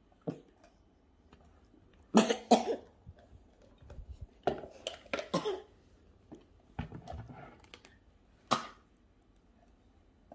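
A string of short coughs, coming in small clusters with pauses between them.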